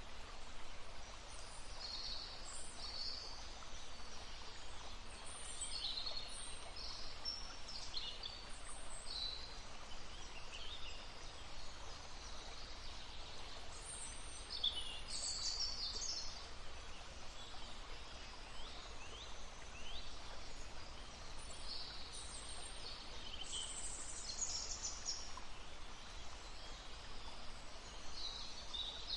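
Small birds chirping and singing in short, scattered phrases over the steady rush of a babbling stream.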